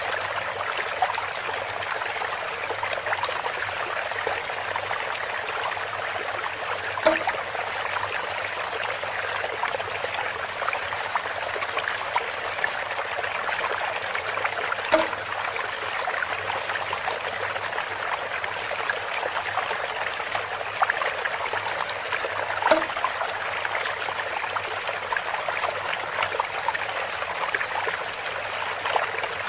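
Water steadily trickling and splashing from a bamboo water fountain. A short hollow knock comes three times, about every eight seconds.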